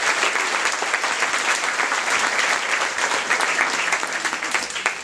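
Crowd applauding, dense clapping that thins out just at the end.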